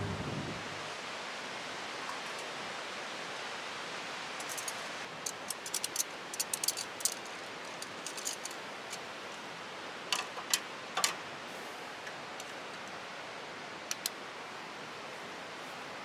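A steady, even hiss, with scattered light clicks and rustles from about four seconds in until near the end.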